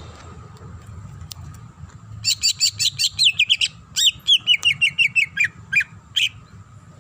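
Green leafbird (cucak ijo) singing: about two seconds in, a rapid run of sharp, high, down-sweeping notes, then a quick series of notes stepping down in pitch, and one last note near the end.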